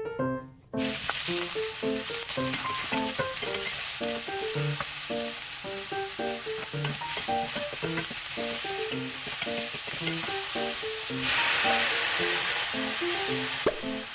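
Sausage and Brussels sprouts sizzling as they stir-fry in a hot pan. The sizzle starts about a second in and swells louder for a couple of seconds near the end.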